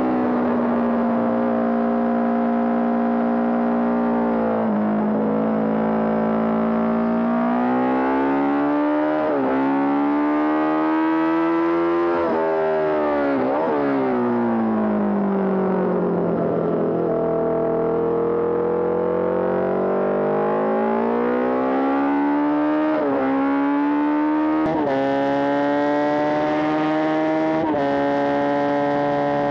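Honda CB750 Four racing motorcycle's air-cooled inline-four engine under race load, climbing in pitch through the gears with a quick drop at each upshift. About halfway through it falls steadily as the bike slows for a corner, then pulls hard again with three more upshifts near the end.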